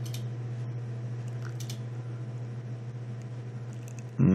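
Steady low electrical hum on the recording, with a few faint clicks of the kind a computer mouse makes.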